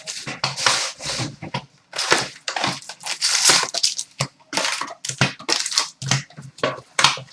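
Trading card pack wrappers being torn open and crinkled by hand: a rapid, irregular run of crackling and ripping.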